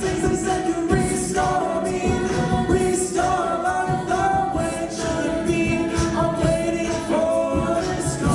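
Co-ed a cappella group singing a pop-rock song, several voices in harmony with no instruments.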